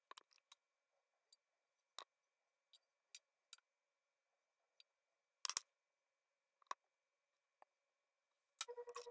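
Scattered light taps and clicks of hands and a needle tool against a leather-hard clay bowl and the wheel head, while the bowl is centered upside down on a potter's wheel for trimming. The loudest is a short cluster of knocks about halfway through. Near the end a steady hum starts.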